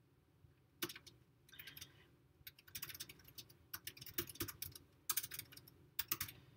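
Quiet typing on a computer keyboard: keystrokes in short irregular runs as a sentence is typed, with a few sharper single key clicks.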